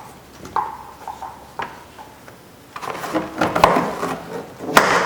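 Hard plastic car door trim being handled and fitted: a few separate sharp clicks early on, then a busier clatter of knocks and rattles from about three seconds in.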